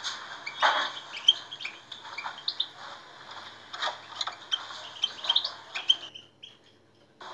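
European goldfinch singing a fast twittering run of short chirps, breaking off about six seconds in.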